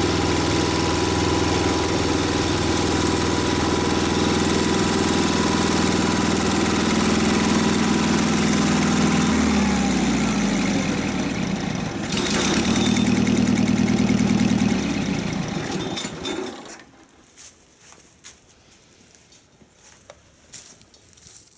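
Mobile dimension sawmill's engine running steadily. About halfway through its pitch sags, it picks up again briefly, then it winds down and stops about three-quarters of the way in, leaving only faint scattered clicks.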